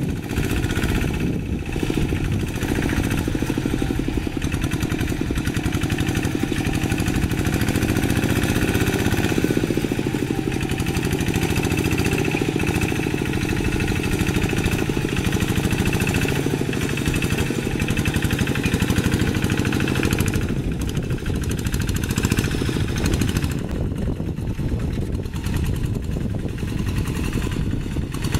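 Kubota single-cylinder diesel engine of a two-wheel hand tractor running steadily under load while it rakes a flooded rice paddy, with an even chugging that does not let up.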